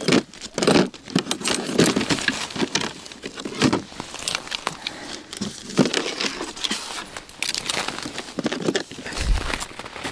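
Footsteps crunching and crackling on crusty late-season snow and ice, irregular, with a dull low thump about nine seconds in.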